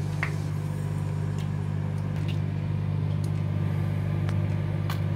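Microwave oven running with a steady low mains hum, with a few faint scattered clicks over it.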